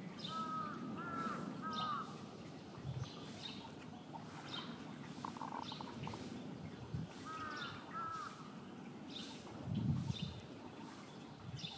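Crow cawing: three caws in quick succession near the start, then two more about seven seconds in.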